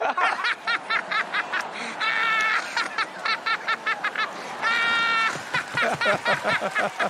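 People laughing hard: a rapid run of laugh bursts, with two high held squeals about two seconds and five seconds in, and deeper laughter near the end.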